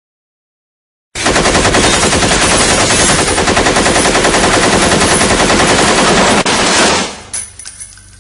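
AK-47 rifle firing on full automatic. About a second in, a long unbroken burst of rapid shots starts and runs for over five seconds, with a momentary break near the end. The shots then stop and the echo dies away.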